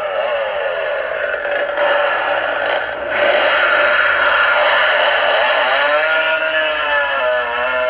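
Gemmy animated Leatherface toy chainsaw running: its built-in chainsaw-engine sound effect revving up and down, with the motorized chain clattering along the bar. The sound gets louder about three seconds in, and the revving pitch wavers most near the end.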